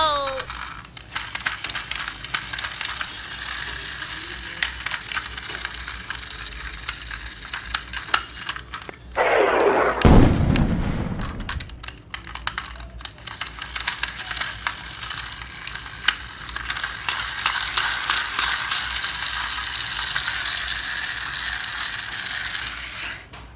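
Plastic toy dump truck's geared wheels clicking and whirring rapidly as they are turned by hand. A loud falling sweep about ten seconds in.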